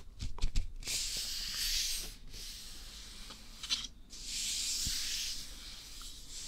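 Two long, even, breathy hisses very close to a binaural dummy-head microphone, one about a second in and another about four seconds in, with a few soft low bumps just before the first.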